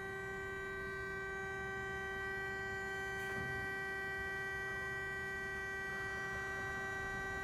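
Marvel E2125-PC60 vertical band saw running in its automatic cutting cycle: a steady whine of several held pitches from its drive and hydraulic system over a low rumble, with a faint knock about three seconds in.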